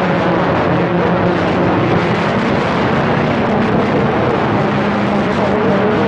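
Cobra CB radio receiver putting out a loud, steady rush of band static, with faint wavering tones under the noise.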